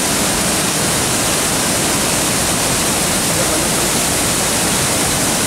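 Large waterfall falling into its plunge pool, heard up close: a loud, steady, unbroken rush of water.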